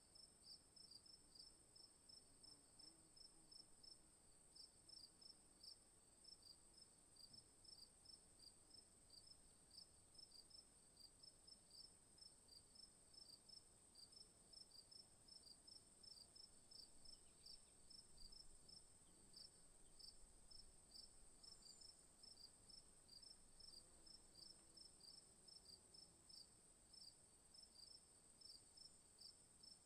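Faint night insects in the bush: one high, continuous trill and, beneath it, another insect chirping in even pulses, about three a second.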